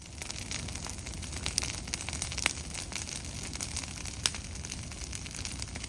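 Food frying in a hot pan: a steady sizzle and crackle that starts abruptly, with a few sharp pops standing out.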